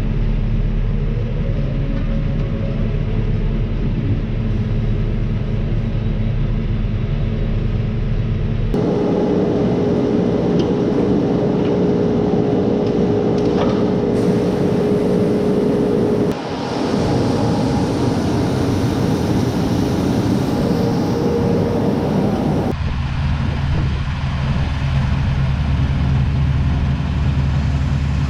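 Combine harvester running steadily while working through wheat. The sound changes abruptly three times, about nine, sixteen and twenty-three seconds in, and a steady hum sits over the machinery between about nine and sixteen seconds.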